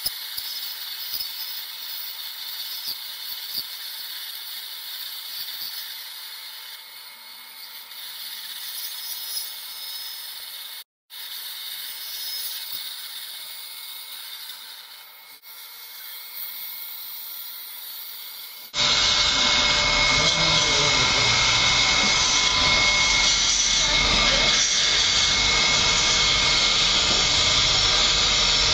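Surgical dental handpiece drilling an impacted wisdom tooth under irrigation: a steady high whine over a hiss. About two-thirds of the way through it cuts abruptly to a much louder, even rushing noise.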